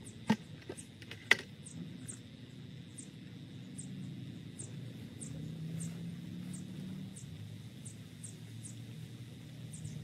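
Two knocks of a plastic bucket as potting soil is tipped into a large plastic pot, then the soil being shifted and spread by hand in the pot. A short high chirp repeats about every half second in the background.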